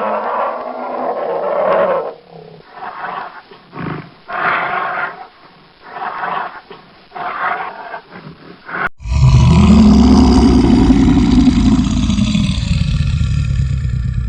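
Bear huffing: a run of short, harsh breaths blown through the nose and lips, a warning call to make itself known. About nine seconds in, another recording starts: a bear's long, loud roar lasting several seconds.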